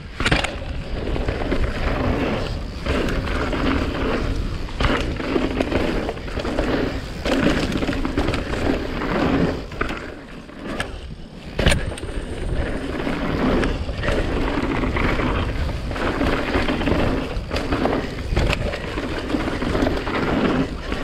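Mountain bike descending a dirt singletrack: tyres rolling over the trail with the bike rattling, and many sharp knocks from bumps, the loudest a little past halfway.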